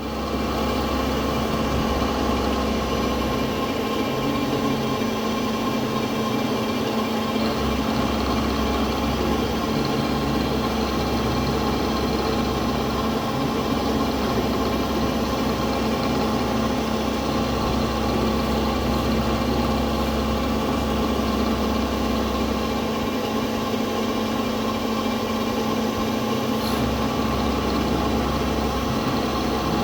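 CNC milling machine running steadily, a constant machine hum with several held tones.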